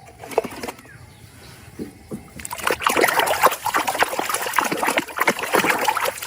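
Water splashing and trickling as a muddy plastic toy is rinsed by hand, a few light splashes at first, then steadier and louder splashing from a little over two seconds in.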